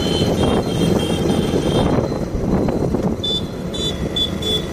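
Motorcycle riding at low speed: engine running with road and wind rumble on the microphone. In the last second and a half a short high beep repeats about twice a second.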